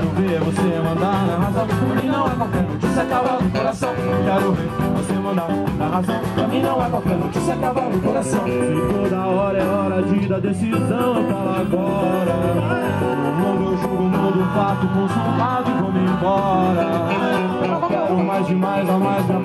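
Live samba from a small band: acoustic guitar and cavaquinho strumming over a hand drum, with a man singing.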